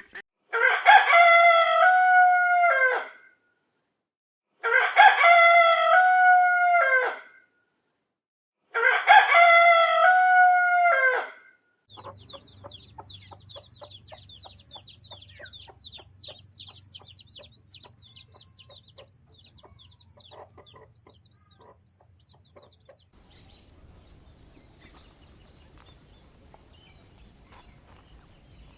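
A rooster crowing three times, each crow about two and a half seconds long. After that comes a quieter stretch of fast, high chirping that fades to faint background noise for the last few seconds.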